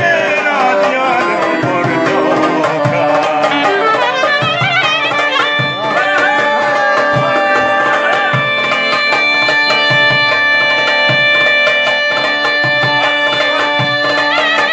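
Albanian folk music played live: a clarinet plays quick, wavering ornamented runs, then long held notes from about six seconds in, over a steady hand-drum beat.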